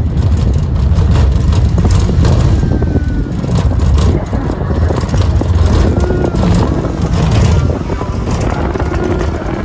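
Amusement ride car travelling along its elevated track: a steady low rumble with frequent rattles and clicks.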